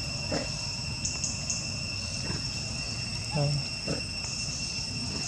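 Steady, high-pitched insect chorus holding at a few fixed pitches over a low background rumble. A few short faint sounds break through, the loudest about three and a half seconds in.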